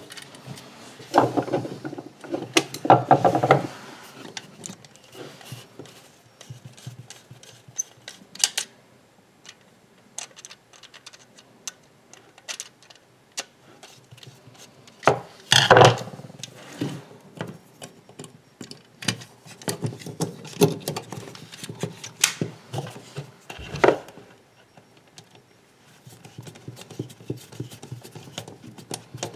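Irregular clicks, knocks and scrapes of hands working a plastic cooker control switch unit: copper cable cores being fed into its supply terminals and the terminal screws turned with an insulated screwdriver. Louder bursts of handling come about a second in and again about halfway.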